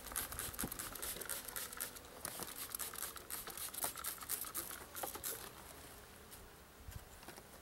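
Close rustling and quick crinkly clicks of hands working in a wooden beehive box, setting the queen cage in between the frames. The noise dies down over the last two seconds.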